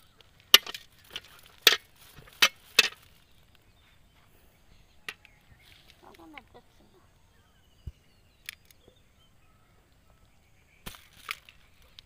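Metal bucket knocking as it is shaken empty of small fish and set down on the grass: four or five sharp knocks in the first three seconds, then scattered faint ticks, and two more knocks near the end.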